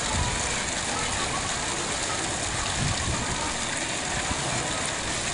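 Steady rushing noise, even and unbroken, with a few faint low knocks.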